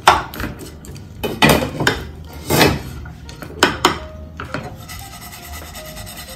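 A wooden spoon scraping and stirring cooked ground pork around a frying pan, in several strokes over the first four seconds, then quieter.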